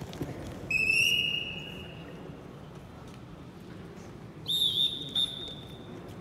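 Wrestling referee's whistle blown twice. The first is a blast of about a second, just under a second in. The second is a higher-pitched blast about four and a half seconds in, with a short second toot after it.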